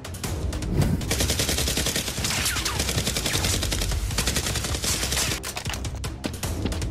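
Rapid automatic-gunfire sound effects: long dense volleys of shots, sparser in the first second and then nearly continuous.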